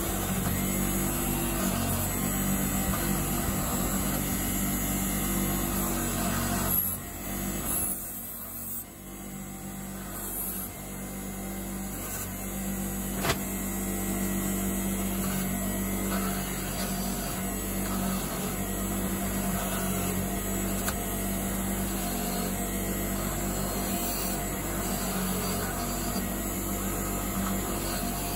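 Bench grinder running with a wire wheel, a cast aluminium skull held against the wheel to clean and polish it: a steady motor hum under a rough brushing noise. The sound drops off briefly about seven seconds in, and there is one sharp click about thirteen seconds in.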